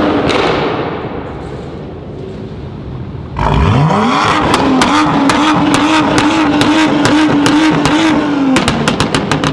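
A tuned performance car's engine is revved sharply about three and a half seconds in and held at high revs for about five seconds, with sharp exhaust cracks and pops. The pops come thick and fast near the end as the revs drop.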